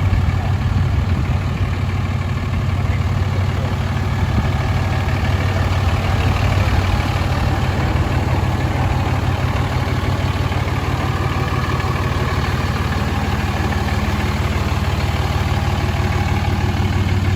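Cummins diesel engine idling steadily, a low, even hum.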